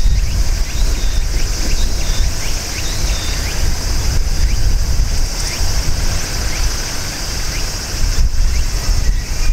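Wind buffeting the microphone in an uneven, gusty low rumble, with a steady high-pitched buzz above it and a few faint short chirps.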